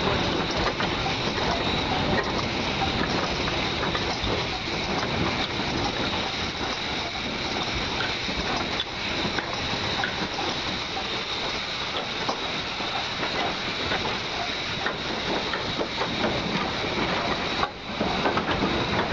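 Narrow-gauge steam tank locomotive running slowly, heard from on board: a steady mix of running-gear and wheel-on-rail rattle with steam hiss. Briefly drops out near the end.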